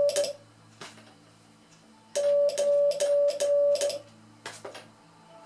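Morse code sent by hand on a straight key: a steady beep keyed on and off with a click at each make and break, sending four long dashes and a short dot, the digit 9. A few sharp key clicks sound in the pause before and after the group.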